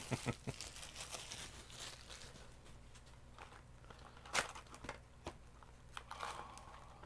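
A trading-card booster box being opened by hand: light crinkling and tearing of its packaging with scattered clicks and rustles, the sharpest one about four seconds in.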